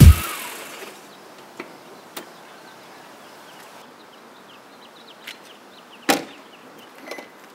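Electronic music fades out in the first second, leaving quiet outdoor ambience with faint chirps and a few light clicks. About six seconds in, the BMW M3 coupe's door shuts with a single short thud.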